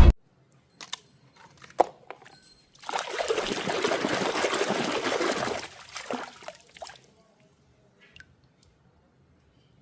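Water pouring and splashing for about three seconds, starting about three seconds in. Scattered small clicks and knocks come before and after it.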